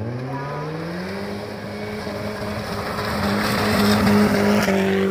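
BMW E36 3 Series engine revving up in the first second, then held at high revs while the car drifts on loose gravel, its tyres scrabbling and spraying stones. It is loudest as the car slides past close by, about four seconds in.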